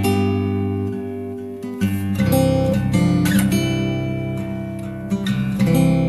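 Background music: acoustic guitar strumming chords, with new chords struck at the start, about two seconds in and again near the end.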